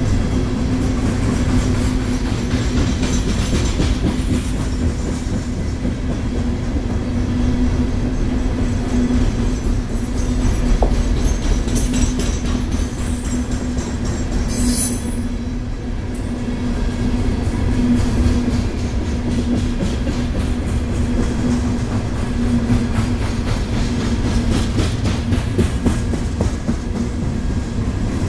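Loaded coal hopper cars of a freight train rolling past: a steady rumble of wheels on rail with clickety-clack and a constant low hum. A brief high-pitched squeal comes about halfway through.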